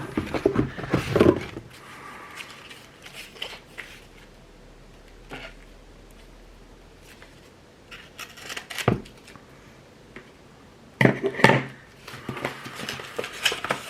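Hot sauce bottles and packing material being handled: scattered clinks, knocks and rustling, with a louder clatter about eleven seconds in.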